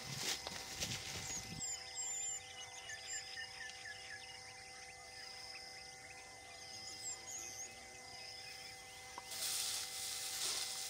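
Rural outdoor ambience: small birds chirping in short quick calls over a faint steady hum. A low rumble fills the first second or so, and a rustling hiss comes in for the last second and a half.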